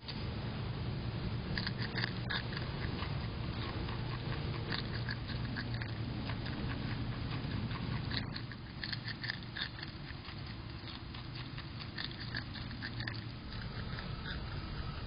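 An animal chewing food close to the microphone: clusters of short, crisp crunching clicks over a steady low hum.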